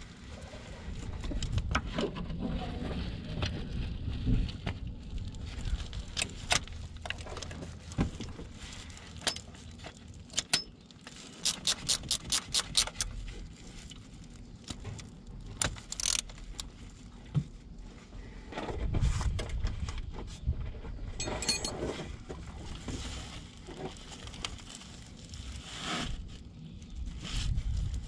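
Metal tools and engine parts clicking and clinking while a new timing belt and tensioner are fitted by hand, with a quick run of about ten even clicks about twelve seconds in.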